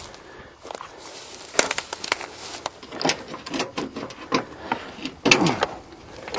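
Irregular clicks, knocks and rattles of objects being handled by hand, with a louder clatter about five seconds in.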